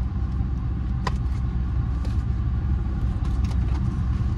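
Steady low rumble of a car idling, heard inside the cabin, with a light click about a second in as a plastic takeout container is handled.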